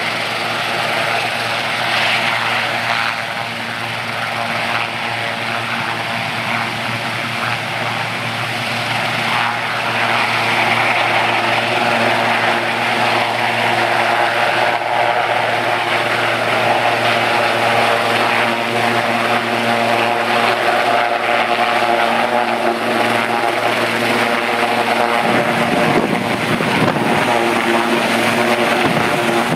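Sikorsky S-76 helicopter with twin turbines and rotor running, getting louder as it lifts off the ground. A strong low rumble swells in near the end as it rises close by.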